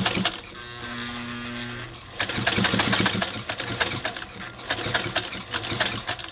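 Singer 99K sewing machine stitching through thick, stiff suede. A short steady motor hum about a second in, then from about two seconds in a long run of fast, even ticking from the needle mechanism as it sews.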